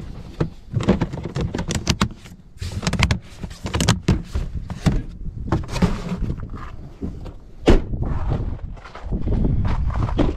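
Hard plastic storage boxes knocking and clattering as they are shifted around in a pickup's rear cab, with the cab door handled and one loud sharp knock about three-quarters of the way in. Near the end come footsteps on the ground outside.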